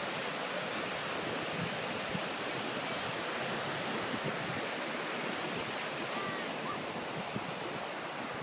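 Pacific Ocean surf washing onto the beach, a steady rushing hiss.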